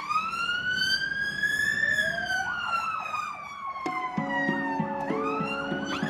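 Ambulance siren wailing: a long tone rises for about two seconds and then slowly falls, with a second faster warbling tone joining midway and a new rising sweep near the end. A set of steady held tones comes in about four seconds in.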